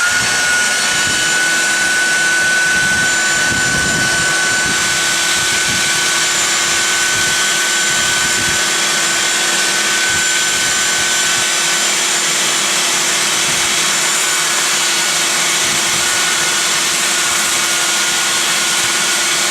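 Porter-Cable 371 belt sander with a 60-grit belt and a Festool dust-extractor hose attached, spinning up and then running steadily with a steady whine.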